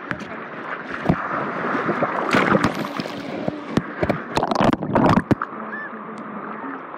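Shallow sea surf sloshing and splashing right at the microphone, with many sharp splashes over a steady rush of water.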